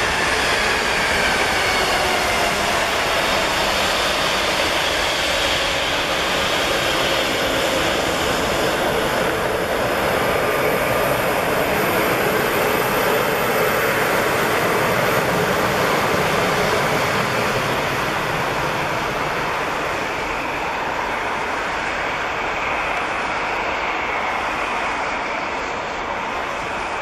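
Embraer E190's twin GE CF34 turbofan engines running at taxi power as the jet rolls close by, a steady jet rumble with a faint whine that slides in pitch in the first few seconds. The sound eases a little in the last third as the aircraft turns away.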